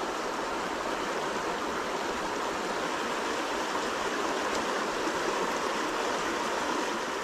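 River water rushing steadily through shallow rapids.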